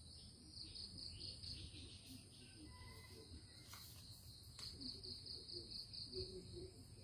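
Faint, high-pitched insect-like trill, pulsing evenly, in two spells over a steady high tone, with a couple of soft clicks near the middle.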